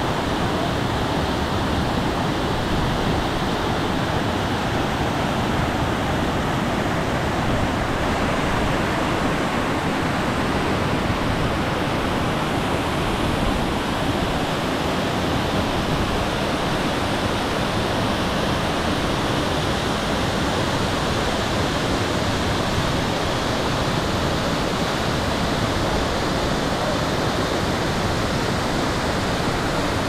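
Steady rush of a waterfall and stream cascading over rocks and boulders.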